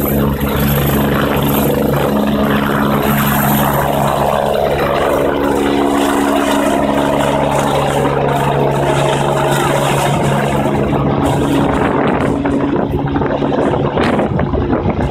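Rescue helicopter lifting off and climbing away overhead: a steady rotor and turbine drone, with a whine that falls in pitch about five seconds in. The tones thin out after about eleven seconds, and wind buffets the microphone near the end.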